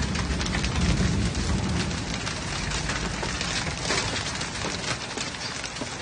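Hail pelting down: a dense, continuous rattle of many small sharp impacts on the window and the ground, with a low rumble during the first half.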